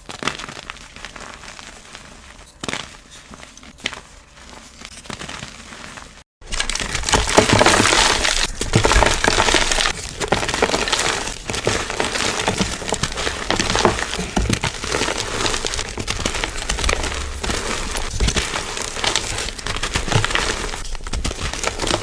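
Brittle material being crushed and broken: scattered crackles and crunches at first, then, after a brief cut about six seconds in, a louder, dense crackling crunch of many small breaks.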